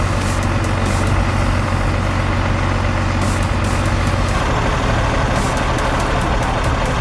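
Heavy log truck's diesel engine running hard under full throttle, labouring to haul its load up a slippery hill. Its note changes about four seconds in.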